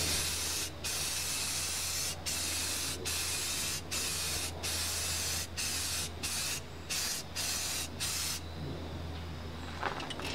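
Purple spray paint hissing out of the nozzle in a string of bursts of about half a second to a second, with short breaks between them, stopping near the end.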